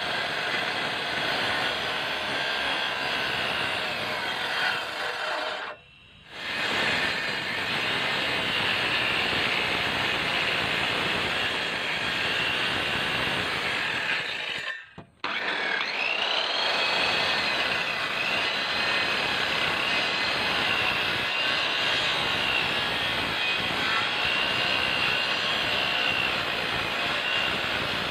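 Handheld electric circular saw cutting kerfs into a hardwood beam to form a long tenon. It runs steadily, its blade whine wavering up and down as it bites through the wood, and the sound cuts out briefly twice.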